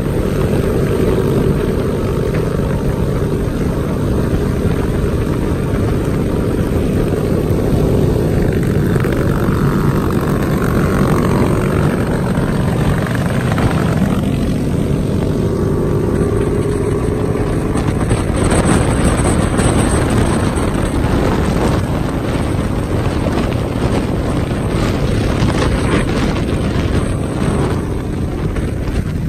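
Wind rushing over the microphone of a moving motorcycle, mixed with the drone of small motorcycle engines cruising at highway speed. An engine note rises and falls briefly about halfway through.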